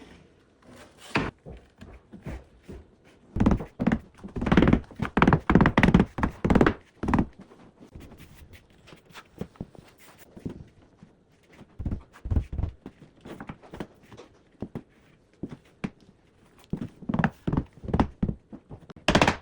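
Wooden door extension trim pieces being set into a door opening, with repeated knocks and thunks in several clusters.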